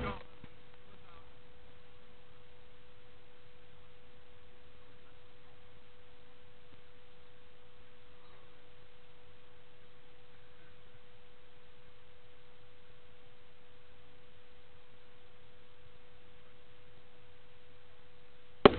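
A steady pure tone of about 500 Hz that holds one pitch and one level throughout, over faint hiss.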